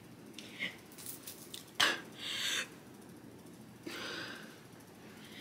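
A person's breath sounds: one sharp, loud exhale about two seconds in and a softer breath about four seconds in.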